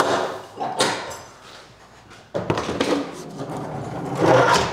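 A Humvee's (HMMWV's) hood is unlatched and tilted up and forward. There are a couple of sharp clunks in the first second, then a longer stretch of knocking and clattering as the hood is raised, loudest near the end.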